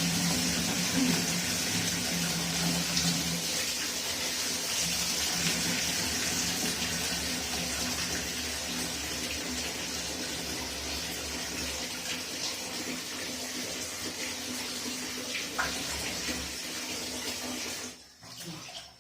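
Water running steadily from a tap or pipe in a continuous stream, stopping abruptly near the end.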